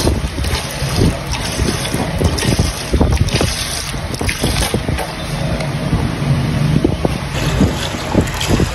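Uneven, gusty wind rumble on the microphone, over milk pouring from a carton into a large steel pot of milk.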